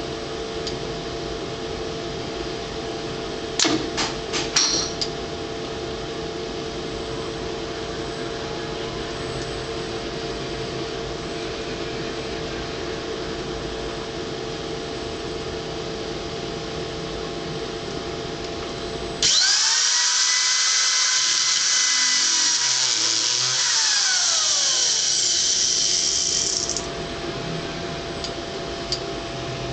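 Steady machinery hum with a few sharp clicks. Then a loud, high-pitched whirring hiss spins up and runs for about seven seconds before cutting off.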